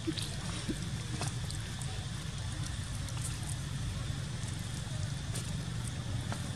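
Steady low rumbling background noise with a few scattered faint clicks and ticks.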